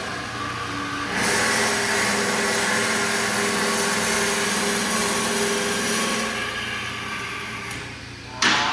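Horizontal bandsaw blade cutting through metal stock: a steady hum with a hiss over it that starts about a second in and eases off after about six seconds. A loud, sharp clank comes near the end.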